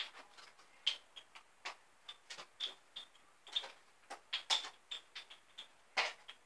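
Irregular light clicks and taps, several a second, as small hard objects are handled in the hands, some with a short high ring.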